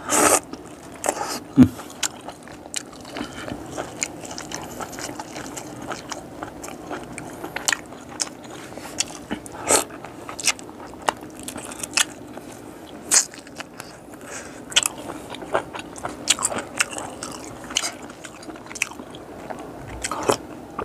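A man chewing and biting into boiled frogs, close to the microphone, with irregular sharp crunches and wet chewing throughout.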